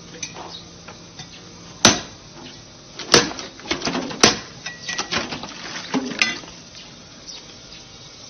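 A steel blade striking a metal rod laid across a steel block: three sharp metallic clanks about two, three and four seconds in, then a quicker run of lighter clinks with brief ringing.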